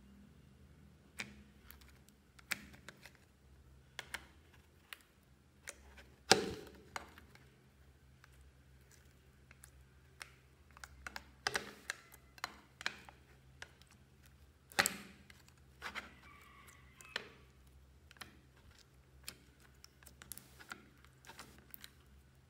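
Clear slime being pressed, squished and pulled against a plastic eyeshadow palette: irregular sticky clicks and small pops, with a sharper pop about six seconds in and another near fifteen seconds.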